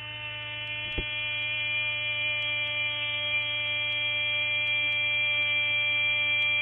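A steady electronic buzz of several held tones that does not change, typical of a broadcast audio glitch where the sound has frozen on the commentator's last syllable. There is a single faint click about a second in.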